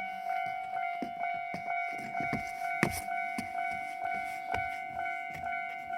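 Japanese railway level-crossing warning bell ringing its 'kan-kan' alarm, even ringing strokes at a little under two a second.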